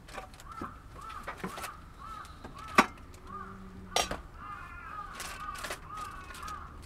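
Camping gear being handled and set down, with sharp knocks about three and four seconds in. Birds call over and over in the background, a steady run of short chirps.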